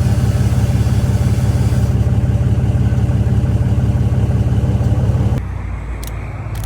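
A motor vehicle's engine running loud and close, a steady low drone with a rapid pulse, which drops off sharply about five seconds in.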